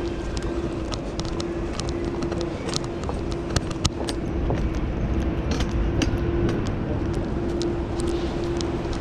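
Outdoor urban ambience heard while walking: a low rumble under a steady hum, with scattered light clicks and taps from footsteps and from handling a phone.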